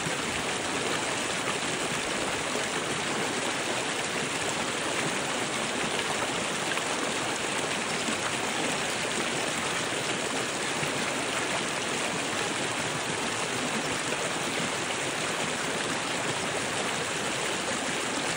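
Creek water rushing steadily over and around rocks, an even, unbroken rush.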